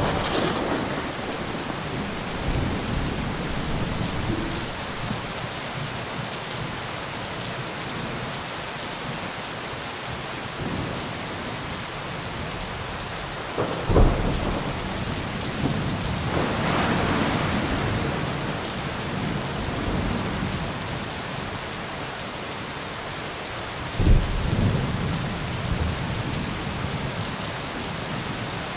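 Thunderstorm: steady rain with rolling thunder. A sharp thunderclap comes about halfway through and another later on, each trailing into a rumble.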